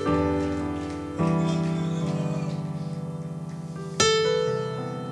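Keyboard playing slow, sustained chords. A new chord comes in about a second in and another about four seconds in, each fading slowly.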